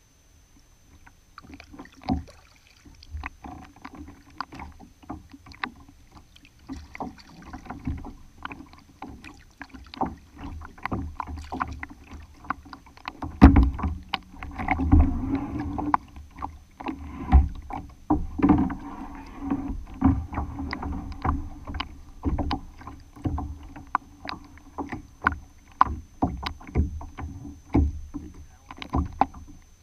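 Lake water lapping and splashing against a kayak's hull right at a waterline-mounted camera, with many irregular knocks and slaps, starting after about a second and a half.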